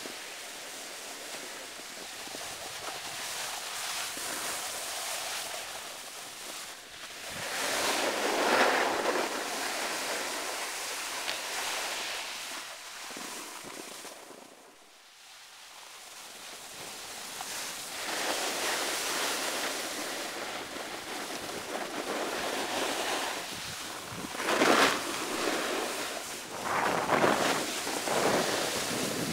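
A snowboard sliding and scraping over snow, a rushing hiss that swells and fades. There are loud surges at about 8 seconds, and twice more near the end, with a lull around the middle.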